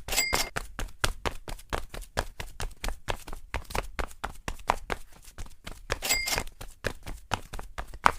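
A rapid, uneven run of sharp taps or clicks, about four to six a second, like hoofbeats or quick footsteps. A short high ringing tone sounds briefly twice, just after the start and about six seconds in.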